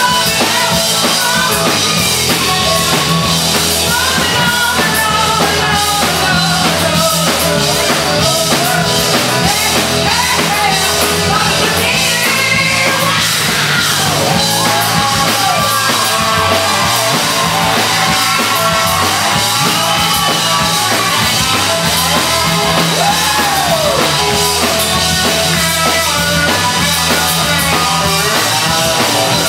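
Live rock band playing: a woman sings lead over electric guitar and a drum kit, loud and continuous.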